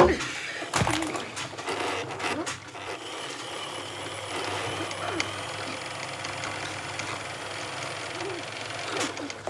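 Two sharp knocks, one right at the start and another just under a second in, then an electric sewing machine running steadily with a low hum.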